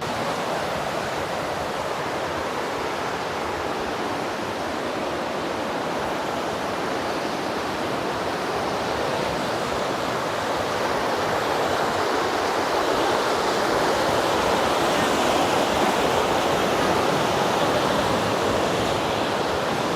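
Waterfall: a steady, even rush of falling water that grows a little louder over the second half.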